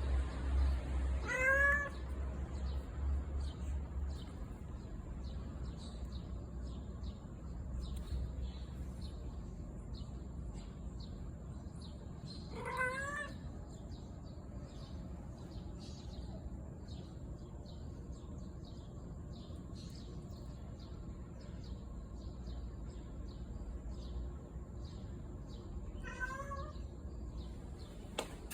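A calico community cat meowing three times, roughly twelve seconds apart, each call short and rising then falling in pitch. The cat is in a slightly grumpy mood.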